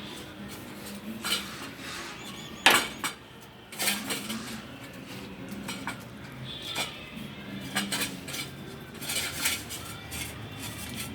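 A dish or bowl clinking and scraping at irregular intervals as food is eaten from it, with one sharper knock near the third second.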